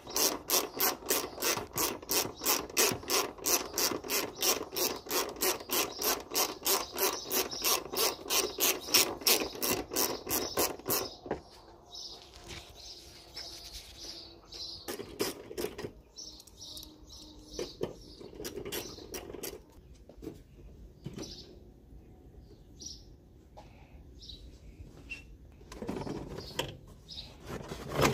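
A hand socket ratchet clicking in a fast, even rhythm, about four clicks a second, for around eleven seconds as a bolt is turned. After that come scattered, irregular clinks and rubbing of tools and parts being handled.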